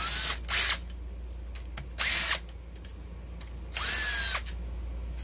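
DeWalt cordless power driver with a socket spinning out the bolts that hold the exhaust rocker shaft on a Honda J32A2 cylinder head, in about four short runs, its motor whine rising as it spins up.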